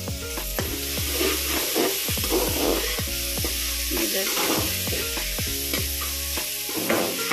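Sliced onions and chopped tomatoes sizzling in hot oil in a steel kadhai, stirred with a metal slotted spoon that scrapes and clicks against the pan again and again, over background music.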